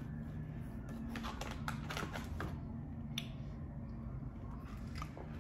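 Scattered light clicks and crinkles of plastic snack packaging being handled, over a low steady hum.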